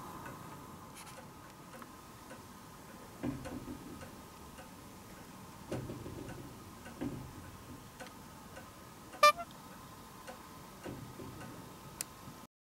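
Quiet room with a faint steady high hum, soft scattered ticks and a few light knocks. About nine seconds in, a brief high-pitched chirp-like tone is the loudest sound. A sharp click comes just before the sound cuts off near the end.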